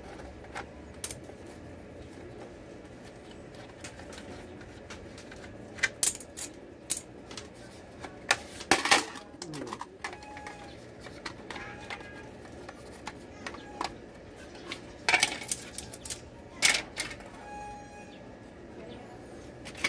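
Plastic case of a ZLT S10G modem being pried open with a small screwdriver: scattered sharp clicks and snaps as the case clips give way, the loudest in two clusters about six to nine seconds in and again about fifteen to seventeen seconds in.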